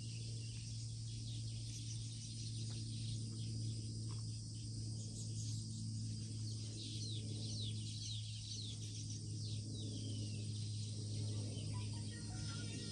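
Birds calling with many short, falling chirps, thickest in the middle, over a steady high insect drone and a steady low hum.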